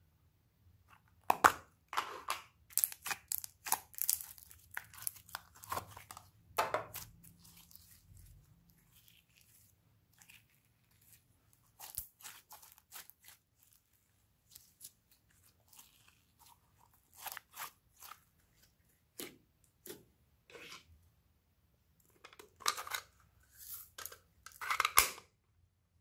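Glossy white slime being stretched and pulled apart by hand, crackling and tearing in quick runs of small pops. The crackles come thickest in the first several seconds, thin out through the middle and pick up again near the end.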